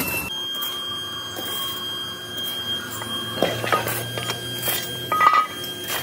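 Steel shovel scraping through loose foundry molding sand and tipping it into a steel casting flask, in a few short scrapes and knocks, over a steady high-pitched whine.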